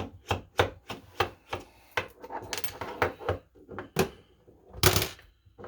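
Phillips screwdriver working a Loctite-set screw on a padlock: a run of clicks and scrapes about three a second, with a louder clunk near the end.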